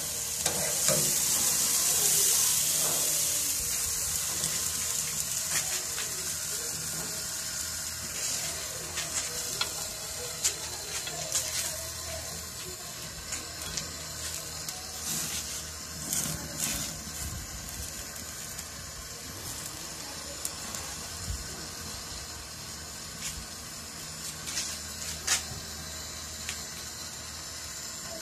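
Steak sizzling on a rotisserie spit over open gas-grill flames: a steady hiss, loudest in the first few seconds, with scattered crackles and pops.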